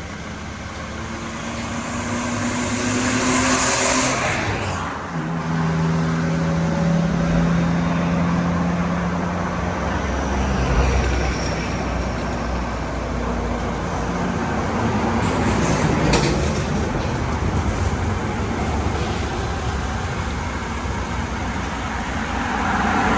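A motor vehicle's engine running steadily, with a burst of hiss about three to four seconds in and a sharp knock around sixteen seconds.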